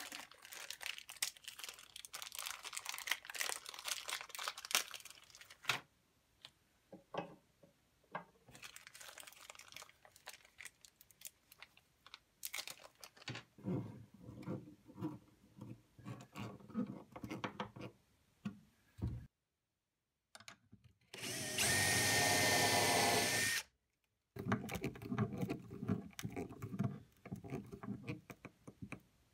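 Hand tool work on brass cabinet hinges. It opens with rustling and clicking as packaged brass hardware is handled, then comes a series of short creaks and scrapes as brass screws are driven into a hinge with a hand screwdriver. A little past two-thirds of the way in, a power drill runs steadily with a whine for about two seconds, drilling a hinge screw hole; this is the loudest sound.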